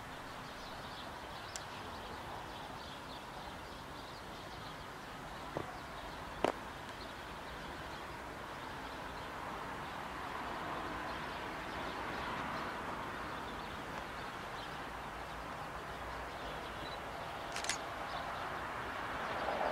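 Faint outdoor ambience with birds, while a distant Esslinger diesel railcar train approaches, its sound slowly growing toward the end. A few short clicks are heard around a third of the way in and again near the end.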